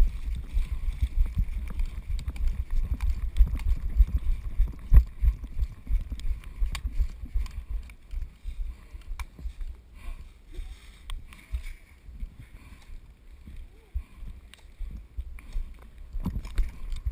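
Low, irregular rumbling and thumps of a body-worn camera being jostled as its wearer moves, with scattered faint sharp clicks. The rumble eases off in the middle and picks up again near the end.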